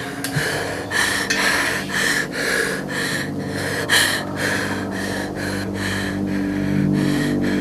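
A man breathing hard and fast, about two breaths a second, over a steady low hum.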